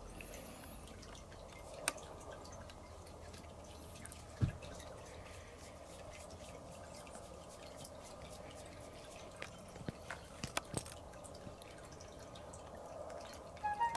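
Quiet room tone with a few faint, sharp clicks scattered through it and one dull thump about four and a half seconds in.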